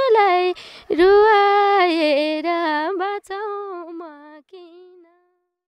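A woman singing a Nepali folk song (lok geet) unaccompanied, drawing out long wavering notes at the close of a phrase, with a breath about half a second in; the voice fades away a little before the end.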